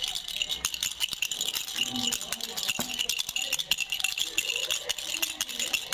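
Baby rattle shaken without pause, a dense, rapid, bright clatter of small beads or pellets inside.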